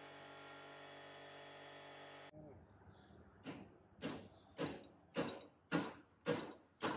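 A steady hum that cuts off abruptly, then a run of seven sharp knocks, evenly spaced about two a second, each with a short ring and growing louder toward the end.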